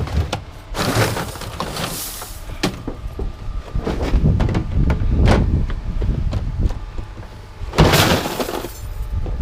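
Scrap metal clattering and crashing as pieces are thrown down onto a pile, with two loud crashes about a second in and near the end and smaller knocks between them.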